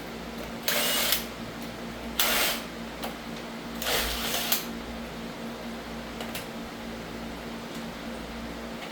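Shop fan running steadily with a constant hum, broken three times in the first half by short, loud bursts of hissing noise.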